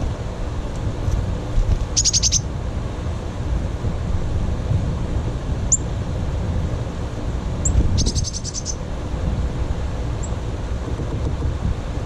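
Small songbirds calling: two quick trills of short, evenly spaced high notes, about 2 s and 8 s in, and a few single high chirps between them, over a steady low rumble of wind or distant traffic.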